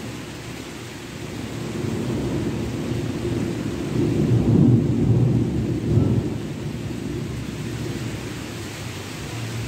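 Rolling thunder from a thunderstorm: a low rumble that swells over a few seconds, peaks about halfway through with two stronger rolls, then dies back to a steady background hiss.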